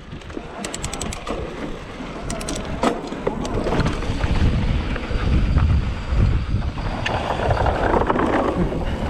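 Wind buffeting the microphone during a fast downhill run on snow, building as speed picks up, with a few sharp clicks in the first three seconds.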